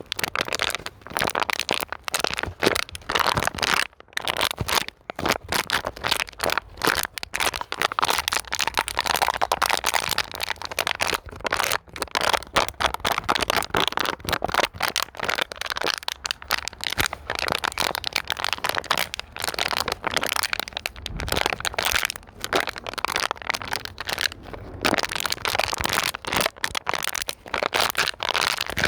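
Plastic bottle being squeezed and crumpled by hand: dense, continuous crinkling and cracking with no pauses.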